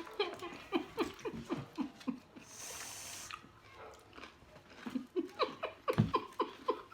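A person laughing in a run of short falling bursts, about three a second. About two and a half seconds in, the laughing stops for a hiss of just under a second from an aerosol whipped cream can spraying, then picks up again towards the end, with a dull thud near the end.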